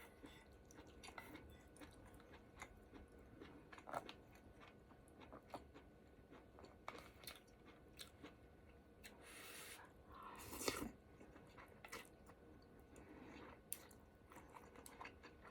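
Faint close-miked chewing and small mouth and food clicks of someone eating ramen hotpot, with one louder, longer noisy sound about ten seconds in.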